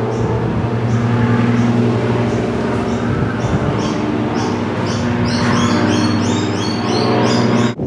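A steady low engine drone with an even pitch, from a motor running continuously. About five seconds in, birds join with rapid high chirps, and the sound cuts off abruptly just before the end.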